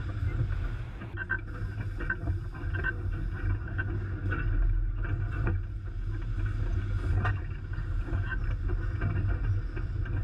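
Tractor assembly-line factory floor: a steady low machinery hum, with a few light clanks and clicks scattered through it.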